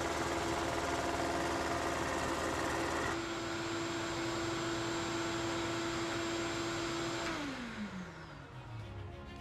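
A lathe converted to a drum sander runs together with a shop vacuum on its dust hood, with a steady motor whine. About three seconds in part of the noise cuts out, and near the end the remaining motor is switched off and winds down, its whine falling in pitch.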